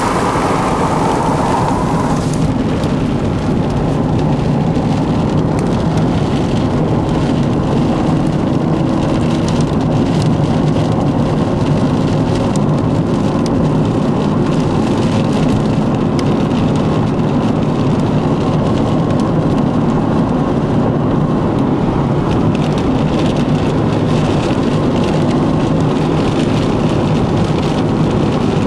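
Heavy rain beating on the windshield and roof of a moving car, heard from inside, over steady road noise. The noise is loud and unbroken, with scattered drop hits.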